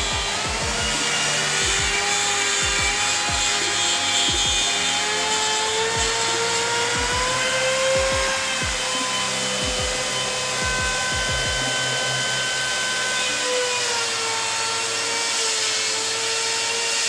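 Lamello Tanga DX200 1700 W window-frame cutter running and cutting into a window frame. Its motor whine sags and recovers in pitch as the blade takes load, with background music and a beat under it.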